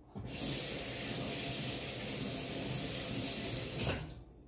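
Kitchen tap running water into a plastic colander in the sink, rinsing peeled shrimp. It turns on just after the start and shuts off about four seconds in.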